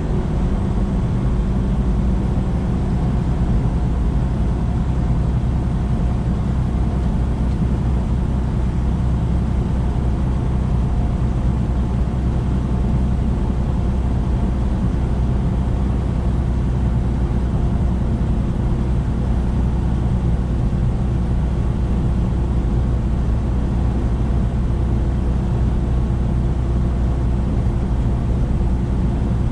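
Semi-truck's diesel engine and tyre noise at a steady highway cruise: a constant low drone with a steady hum that does not change.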